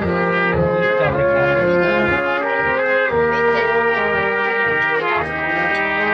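Brass band (Blaskapelle) playing a tune, with trumpets on the melody over a tuba bass line. The notes are held and change every half second or so.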